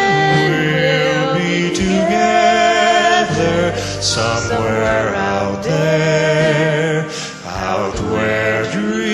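Music: a man and a woman singing a duet, with long held notes and vibrato.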